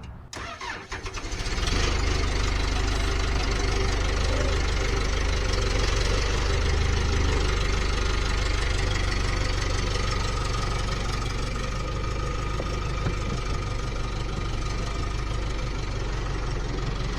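Case 1840 skid steer's diesel engine cranking over for about a second, catching, then running steadily; it settles a little lower about ten seconds in.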